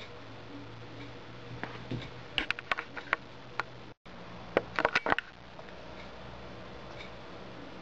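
Sharp clicks and taps from a small butane torch lighter being handled, a scattered few about two and a half to three and a half seconds in and a quick burst of them just after a brief dropout at about four seconds, over a low steady hum.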